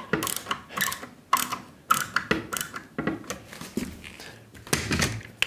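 Silicon bronze wood screws being driven by hand into a wooden chair slat: irregular clicking and creaking strokes from the screwdriver and the screw biting into the wood, with a louder clatter near the end.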